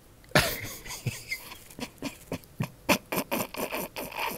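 A man laughing hard: a sudden loud outburst about half a second in, then a run of quick short bursts of laughter, about three a second.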